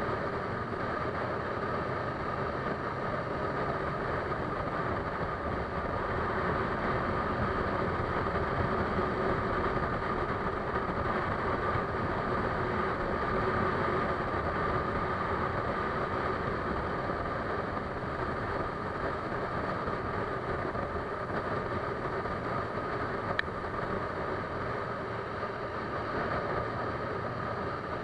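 Steady engine noise, unchanging in level and pitch, with a constant hum; a single faint click late on.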